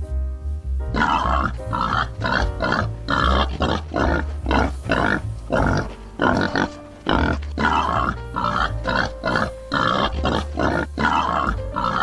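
Boar grunting over and over in short, noisy grunts, about two a second, starting about a second in, over background music.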